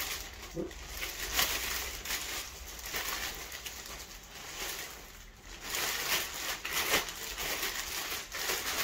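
Clear plastic wrapping crinkling and rustling as a rifle is slid out of its plastic bag, in irregular crackly bursts.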